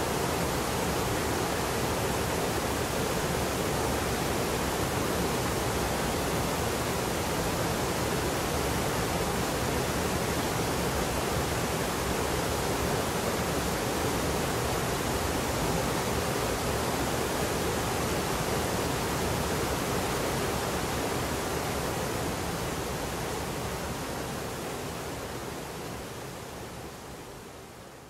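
Water pouring over the stepped travertine cascades of Beaver Falls: a steady rush that fades away over the last several seconds.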